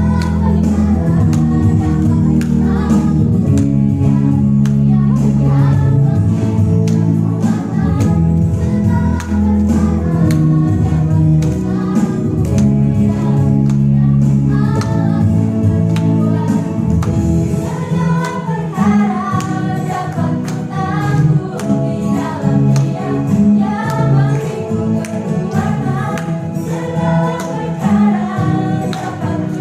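A choir singing a Christmas praise song with a band accompaniment, with a steady beat of percussion.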